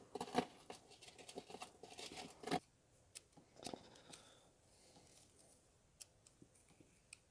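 Small screwdriver scraping and picking burnt-out gasket residue from a brass Coleman lantern fuel filler cap insert. A run of faint quick scratches and clicks lasts about two and a half seconds, then a few scattered ticks follow.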